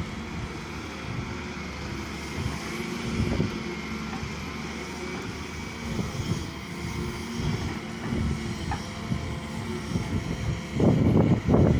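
Diesel engine of heavy earthmoving equipment running steadily, with the sound growing louder near the end.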